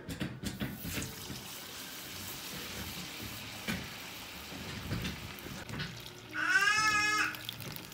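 Marinated chicken drumsticks sizzling as they go into hot oil in a wok: the steady hiss of deep-frying. About six seconds in, a long, wavering high-pitched call sounds over the sizzle and is the loudest thing heard.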